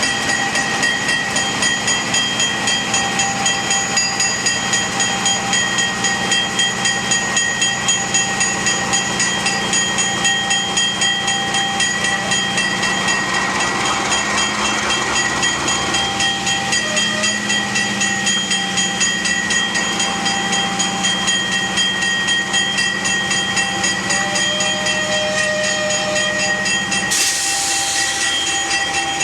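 Locomotive running, a steady rumble with several high whining tones over it. Near the end the low rumble drops away and a hiss starts.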